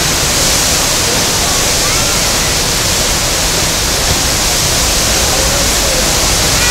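Loud, steady rush of whitewater from the Eisbach river wave, a standing wave where the fast stream pours over a step in the riverbed.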